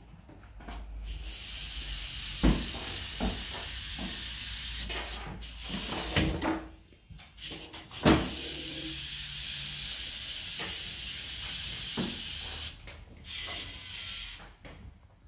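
Small DC gear motors of a plastic-block robot dog running with a steady whirring hiss as it walks and moves its arm, pausing briefly about halfway through. A few sharp knocks of plastic parts, the loudest about two and a half seconds in and another about eight seconds in.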